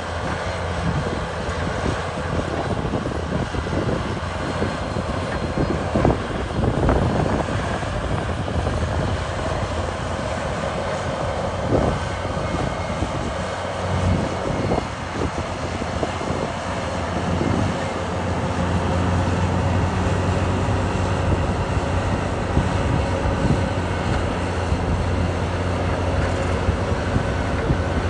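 Caterpillar D6R2 crawler bulldozer's diesel engine running steadily under load as it pushes dirt, with occasional sharp clanks and knocks.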